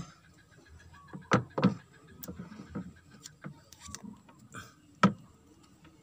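Electrical insulating tape being pulled off the roll and wrapped around the new motor capacitor's wire joints, with a few sharp crackles and snaps, the loudest about a second and a half in and again about five seconds in.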